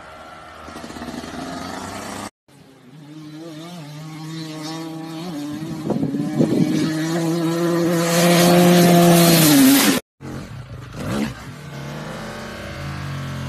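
Dirt bike engines across short clips. The loudest revs up and holds high revs for a couple of seconds, with a rush of hiss, before cutting off suddenly about ten seconds in. Another dirt bike engine follows.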